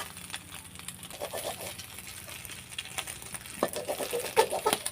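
Metal spatula clinking and scraping against a karai as a fried egg omelette is cut into pieces in the pan, over a light sizzle of frying oil. The clinks come in quick irregular knocks, loudest and busiest in the last second and a half.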